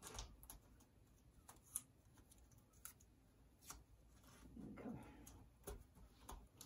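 Near silence, with a few faint scattered clicks and a soft rustle about five seconds in, from hands handling painting materials.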